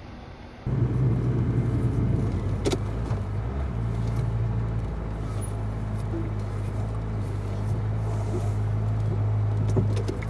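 Steady low hum and rumble of a car on the move, heard from inside, starting abruptly about a second in, with a few faint clicks.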